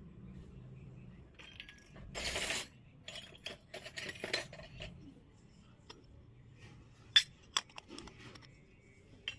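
Miniature toy kitchen pieces handled and set down: a short scrape or rustle, then scattered light clicks and clinks, with two sharp clinks near the end.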